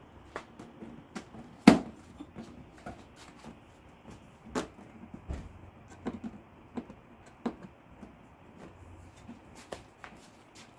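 Plastic clips of a car-door window weatherstrip trim being pressed and snapped into place by hand: a series of irregular clicks and knocks, the loudest about two seconds in.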